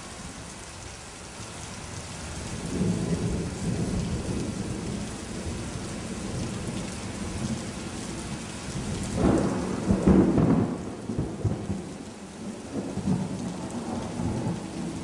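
Thunderstorm: steady rain hiss with rolling thunder, the rumbles building about three seconds in and loudest around ten seconds in.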